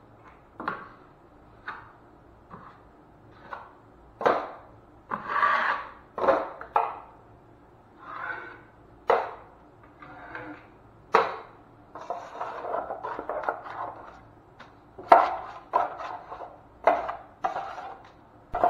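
Metal drywall taping knife spreading and scraping joint compound across a wall patch, with short sharp scrapes and clacks against the metal mud pan. The strokes come irregularly, about one a second, some of them longer drawn-out scrapes.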